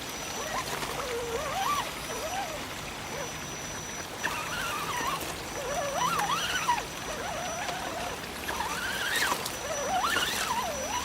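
Electric motor and drivetrain of an Axial 4x4 RC jeep whining, the pitch rising and falling repeatedly as the throttle is worked, over a steady hiss.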